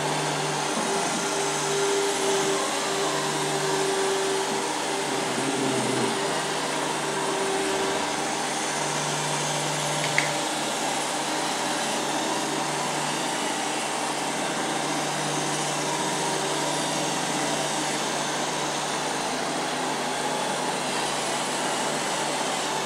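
Robot vacuum cleaner running: a steady motor and fan hum with a hiss, and one brief click about ten seconds in.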